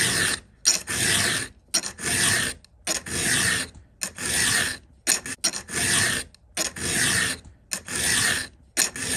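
Round chainsaw file rasping across a chain's cutter tooth in steady hand strokes, about one a second, with a short click between strokes as the file is set back. The file is biting clean metal as the ragged tooth cleans up.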